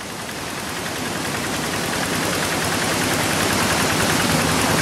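Single-cylinder diesel engine of a two-wheel hand tractor running with a rapid knock, fading in and growing louder over the first two seconds.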